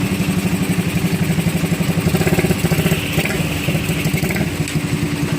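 Vehicle engine running steadily close by, with a rapid even putter.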